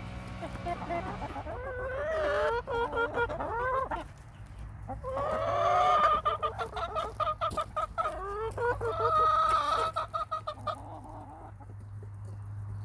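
Laying hens clucking: a series of short, rising and falling calls in two bouts, fading out near the end.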